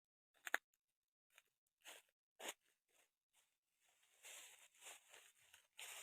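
Faint irregular crunching and crackling: a few sharp clicks in the first half, then a denser stretch of rustling crackle about four seconds in.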